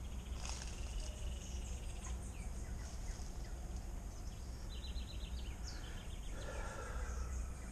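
Forest ambience: birds chirping and calling in short scattered notes, with a quick run of calls about five seconds in, over a steady high insect drone and a constant low rumble.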